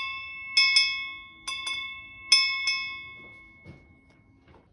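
Brass steam-locomotive bell rung by hand, struck six times in three quick pairs, each stroke ringing on and fading. The ringing dies away near the end.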